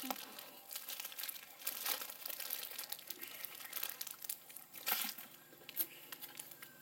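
Small paper card wrappers being torn open and crinkled by hand, in irregular rustling bursts.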